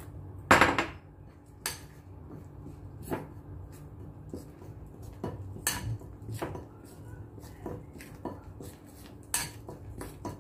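Metal fork clinking and scraping against a ceramic bowl while stirring flour, egg and water into batter, in irregular clinks about once or twice a second, with one louder knock about half a second in.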